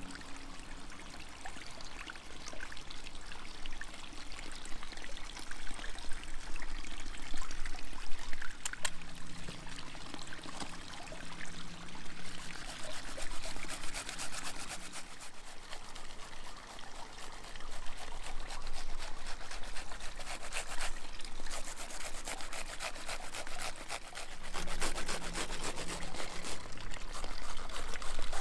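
Water running and trickling steadily, getting louder in the second half.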